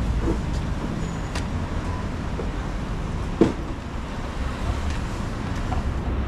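Steady low rumble of road traffic, with a brief knock about three and a half seconds in.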